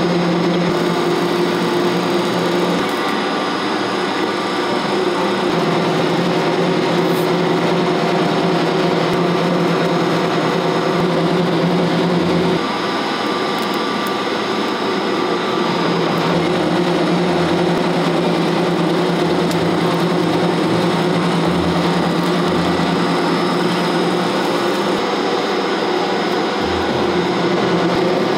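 Two-roll mill for silicone rubber running: a steady, loud mechanical drone from its motor and turning steel rollers. About halfway through, the drone dips and shifts for a few seconds, then returns.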